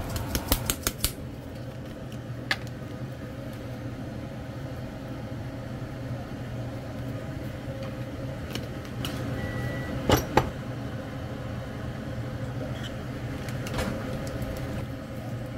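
Steady mechanical hum like a fan running, with a quick run of clicks at the start and a few scattered clicks after. A short high beep sounds about ten seconds in, followed at once by two sharp knocks.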